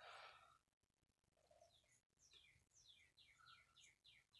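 Faint bird chirping: a run of short, quickly falling high notes, about three a second, starting about halfway through.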